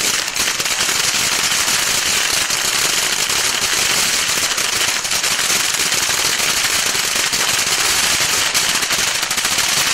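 'Aladdins Cave' ground firework fountain burning, giving a steady hiss thick with dense crackling throughout.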